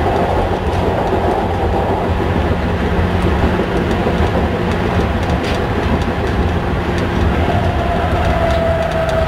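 Hamburg U-Bahn DT3-E train running on the rails, heard from the driver's cab: a steady rumble of wheels on track under a low, even hum. A higher steady tone comes in about eight seconds in.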